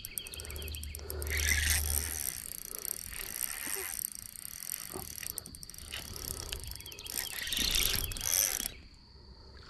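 Fishing reel's drag clicking in quick runs, with the reel being cranked, as a big blue catfish hooked on a light crappie rod pulls line off against the drag.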